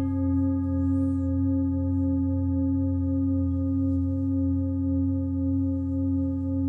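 A frosted quartz crystal singing bowl ringing on after a mallet strike, a clear, steady pitch with fainter higher overtones, its level gently swelling and ebbing. A lower steady hum from another instrument sounds beneath it.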